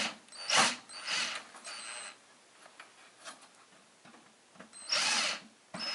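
Power drill used as a screwdriver, whirring in short bursts on the small screws of a computer case: several quick bursts in the first two seconds, faint clicks, then one more burst near the end.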